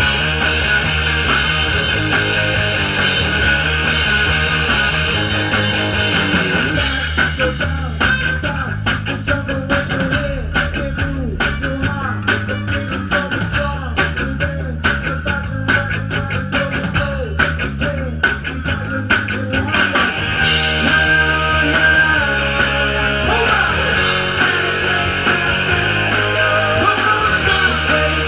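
Live rock band playing: electric guitars, bass and drums with a singer. For a stretch in the middle the high end drops away and the drum hits stand out, then the full band sound returns.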